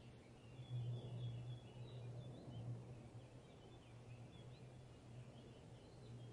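Faint small-bird chirps and twitters, many short calls in quick succession, over a low steady rumble.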